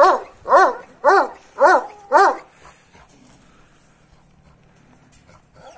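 A large Anatolian shepherd dog barks five times in quick succession, about two barks a second, then stops about two and a half seconds in.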